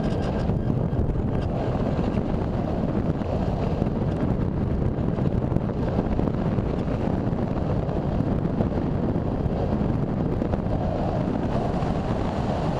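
Steady rush of airflow buffeting the microphone of a camera riding on an RC sailplane in gliding flight, with no motor tone heard.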